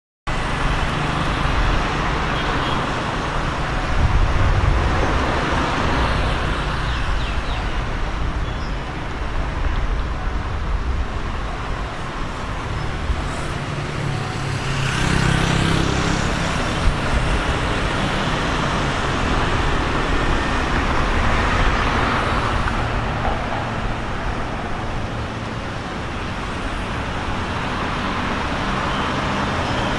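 Road traffic: cars driving over a level crossing and passing, over a steady low engine hum, with louder swells about 4 seconds in and again around the middle.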